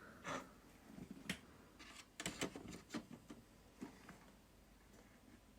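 Faint, scattered clicks and light rattles, several in quick succession around the middle, with no steady hum.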